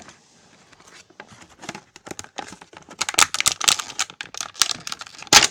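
Plastic and cardboard toy packaging crinkling, crackling and tearing close to the microphone as an action figure is pulled out of its box. The crackles grow louder about three seconds in, with the sharpest one just before the end.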